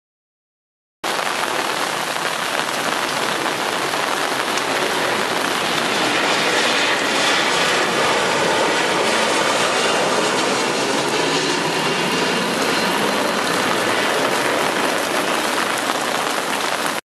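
Steady hiss of rain, starting abruptly about a second in, swelling slightly in the middle and cutting off sharply near the end.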